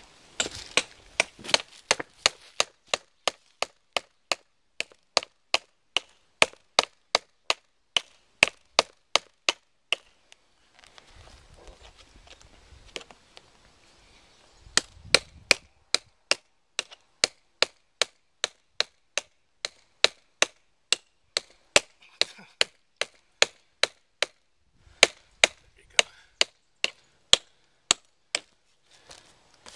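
Hammer driving nails through a canvas painting into a tree trunk: sharp strikes, about two or three a second, with a pause of a few seconds a little after ten seconds in and a shorter pause near the end.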